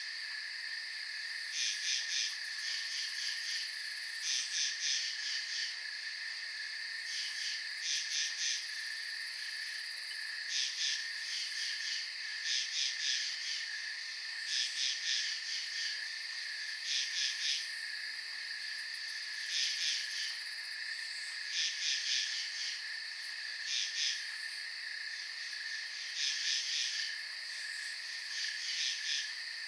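Night insect chorus: a steady high-pitched trill under a louder pulsing chirp that repeats about every two seconds.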